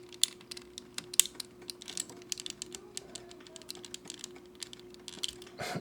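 Irregular light clicks and ticks of hard plastic model-kit parts being handled and pressed together, several a second, over a faint steady hum.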